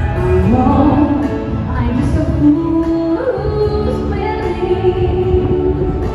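A woman singing into a microphone over instrumental accompaniment, amplified through stage loudspeakers, with held notes that slide in pitch.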